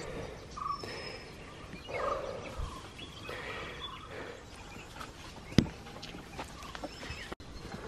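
Short chattering, gobble-like bird calls in forest over the rustle of people walking through leafy undergrowth, with one sharp knock about five and a half seconds in.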